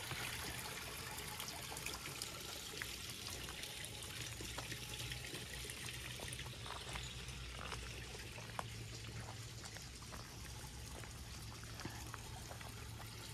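Steady trickle of running water from a garden pond water feature, with a few faint ticks.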